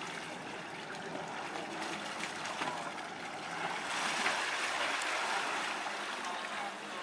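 Water rushing and splashing along the hull of a sailing yacht under way, swelling about four seconds in.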